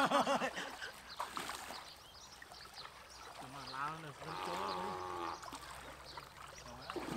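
Water splashing and sloshing as men wade through a shallow muddy pond and drag a mosquito net. A brief voice sounds right at the start, and a drawn-out pitched call, wavering and then held steady, comes in the middle.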